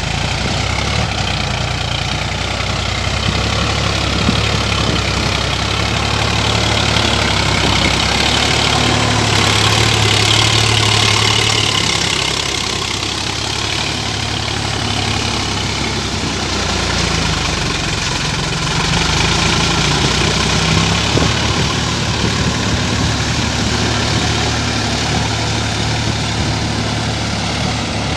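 Sonalika tractor's diesel engine running steadily while ploughing, growing louder for a few seconds about a third of the way in and again past the middle.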